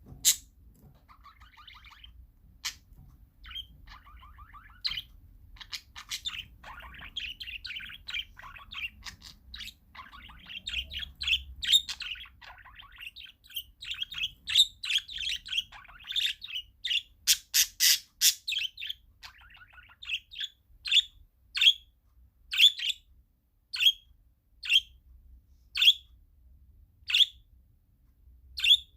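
Parakeets chirping and chattering, with a dense run of rapid calls through the middle. Toward the end the calls thin out to single sharp chirps about once a second.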